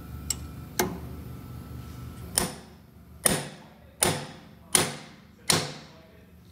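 Hammer blows on a steel driver seated in a valve-seat pocket of a Toyota 2F cylinder head, tapping in a hardened steel valve seat insert. Two light taps near the start, then five sharp, ringing metal-on-metal strikes about three-quarters of a second apart.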